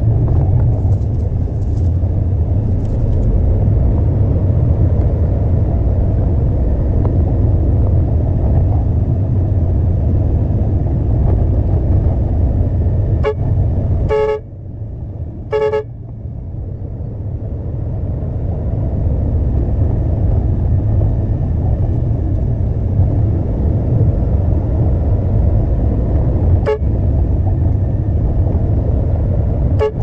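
Heavy truck engine running with a steady low rumble that drops away briefly about halfway through and builds back up over the next few seconds. A vehicle horn gives several short toots, the two strongest about halfway through and two faint ones near the end.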